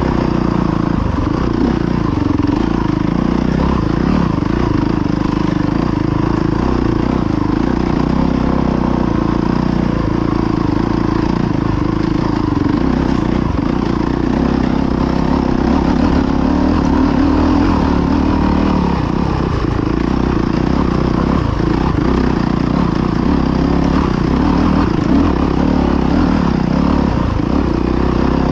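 Dirt bike engine running at low, fairly steady revs with small throttle changes, heard up close from the rider's position.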